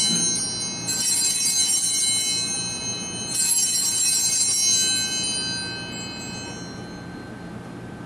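Altar bells (a cluster of small Sanctus bells) shaken three times, bright high ringing that dies away near the end. They signal the elevation of the host at the consecration.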